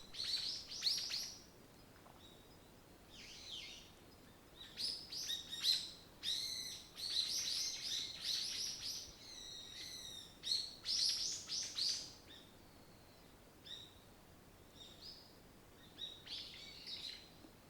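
Small songbirds chirping and trilling in quick clusters. The calls come thickly in the first twelve seconds or so, then thin out to a few scattered chirps.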